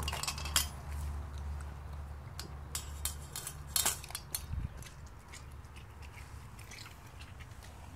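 Doberman puppy eating raw meat from a stainless steel bowl: wet biting and chewing with sharp clicks and clinks against the metal bowl, busiest in the first half and loudest a little before four seconds in.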